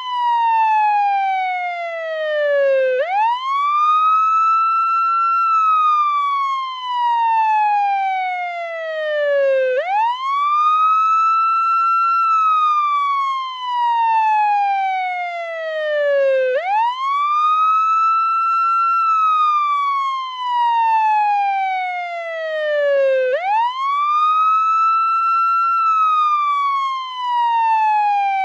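Portuguese ambulance siren on its wail setting: a tone that rises quickly, holds briefly at the top, then falls slowly, repeating about every seven seconds.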